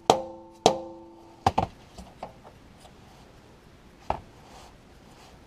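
Hammer blows driving a new Muncie tailshaft bushing into its housing through a homemade PVC install tool: two sharp strikes that ring on briefly in the first second, then a few lighter taps, the last about four seconds in.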